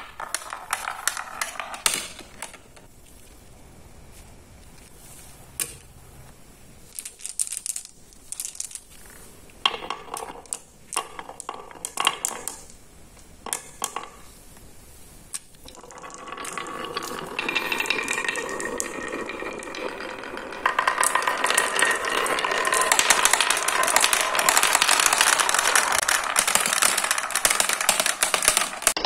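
Marbles rolling down a wooden track and clicking off wooden dowel pegs: scattered single knocks at first, then past the middle a dense, continuous clatter as many marbles pour down the pegs, getting louder again a few seconds later as they pile into a plastic tray.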